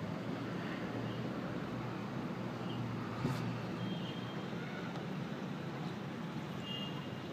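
Aquarium pump and filter running with a steady low hum and hiss, with one short tick about three seconds in.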